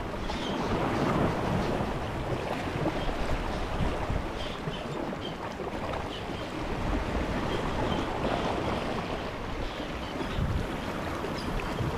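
Sea waves washing against the shore rocks, the rush rising and falling every few seconds, with wind buffeting the microphone.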